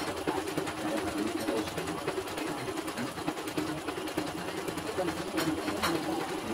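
CNY portable embroidery machine stitching steadily at speed on a test run after repair, with two sharper clicks near the end.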